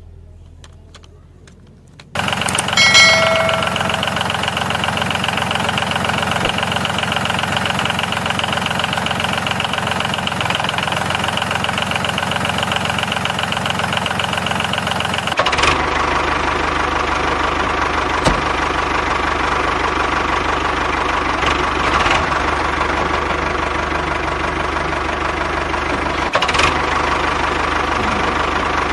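A small motor running steadily, starting suddenly about two seconds in; its tone shifts abruptly about halfway through.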